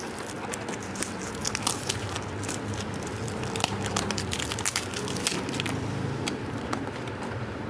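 Crinkling and clicking of cosmetic product packaging being handled, many small irregular crackles and ticks, over a steady low hum.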